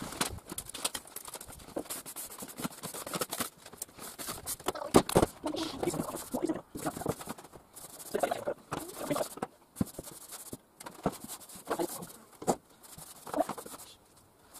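Paint being applied by hand to a corrugated steel shipping-container wall: a run of irregular scratchy strokes broken by small sharp knocks.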